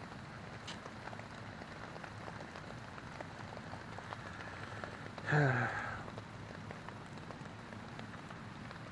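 Steady light rain falling on a tent, with scattered small drop ticks. About five seconds in, a brief low voice sound, like a short hum or grunt, is the loudest thing.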